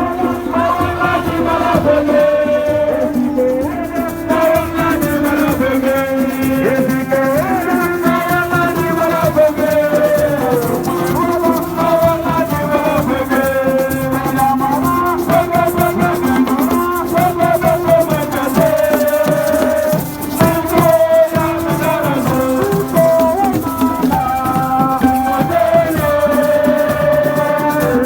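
Music played on shaken rattles in a steady rhythm, with a voice or voices singing a melody over them.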